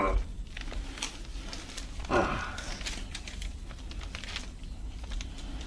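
Soft rustling and rubbing of hands kneading the patient's skin and muscles during soft-tissue massage, with scattered small clicks and a short breathy exhale about two seconds in.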